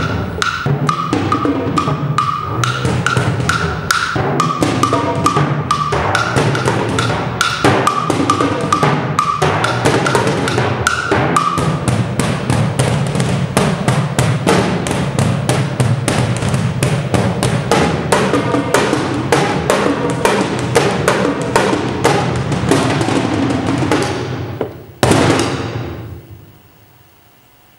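Percussion duo playing a fast, dense passage of rapid stick strokes on drums and other percussion, ending with a single loud stroke about 25 seconds in that rings and dies away.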